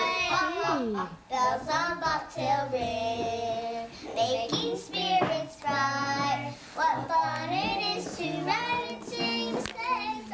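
Two young girls singing a song together, holding long notes.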